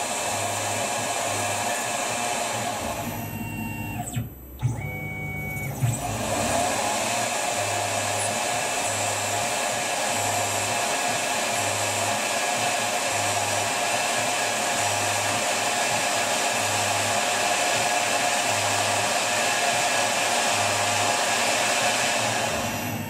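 Tormach RapidTurn CNC lathe spindle running while a drill bores into the back of a part held in a 5C collet: a steady motor whirr mixed with cutting noise. About four seconds in the sound drops briefly with a couple of clicks, then rises again in pitch and runs steady.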